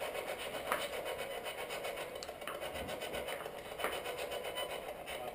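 Spirit box sweeping through radio stations: a steady rasping static with a few faint ticks.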